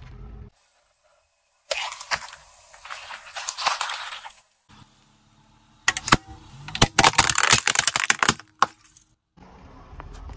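A car tyre crushing objects in short clips: a stretch of crackling and crunching, then a plastic toy ukulele breaking under the tyre in a rapid string of loud, sharp cracks lasting about three seconds. The clips are separated by brief silences.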